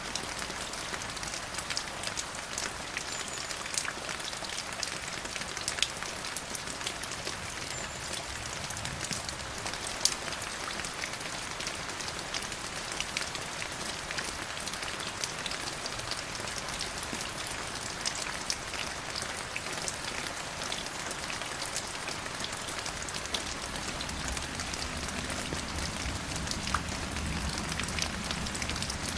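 Steady rain, a continuous hiss dotted with many sharp ticks of single drops hitting a surface. A low rumble rises underneath near the end.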